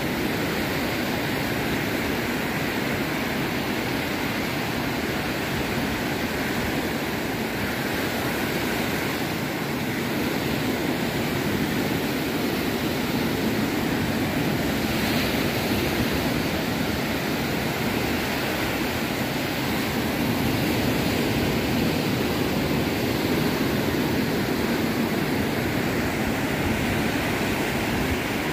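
Ocean surf breaking and washing up a sandy beach: a steady rush of noise that swells a little now and then.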